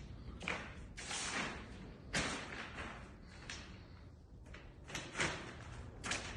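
Footsteps scuffing along a floor, a soft step or scrape roughly once a second.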